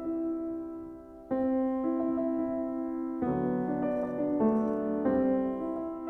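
Slow, soft piano music: held chords that fade a little, with a new chord struck about a second in and another about three seconds in.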